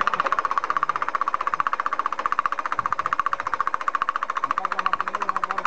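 Klimov VK-1 turbojet engine on its stand making a fast, even rattling pulse, about thirteen beats a second, over a mid-pitched hum.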